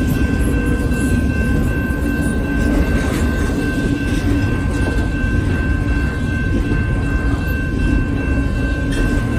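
Double-stack intermodal well cars rolling past on steel wheels: a steady, loud rumble of wheels on rail, with a thin steady high whine over it.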